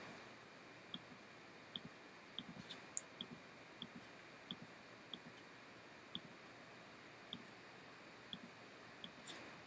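Faint computer mouse clicks, about a dozen at irregular intervals of roughly one a second, against near silence.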